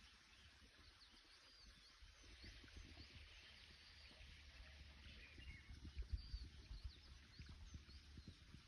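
Faint outdoor birdsong: scattered short chirps and whistled notes from distant birds, over a light hiss and irregular low rumbling thumps that are strongest a little past the middle.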